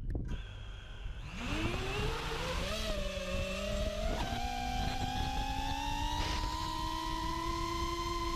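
FPV racing quadcopter's four Emax 2306 2400KV brushless motors with APC 5x4x3 three-blade props, heard from the quad's onboard GoPro. After a click at the start, the motors spin up for takeoff with a whine that rises in pitch from about a second in, then settle into a steady pitched hum as the quad climbs away.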